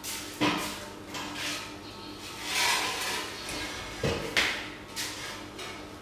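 Metal hand truck knocking and scraping against a refrigerator as it is worked into place: a knock just under half a second in, a longer scrape around the middle, then a quick run of sharp knocks near the end.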